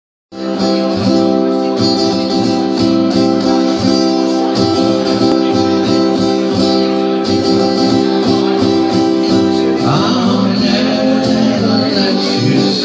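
Steel-string acoustic guitar strummed in a steady rhythm under long held notes, with a man's singing voice coming in about ten seconds in.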